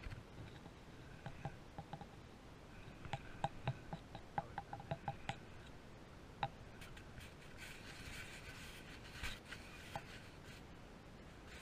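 Light clicks and rubbing from a spinning rod and reel being handled close to the microphone: a quick run of small clicks, then a soft rustle.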